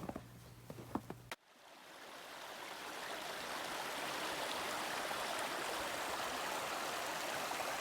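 A few short steps or taps, then a sudden cut to the steady rush of a flowing stream, fading in over about two seconds and holding.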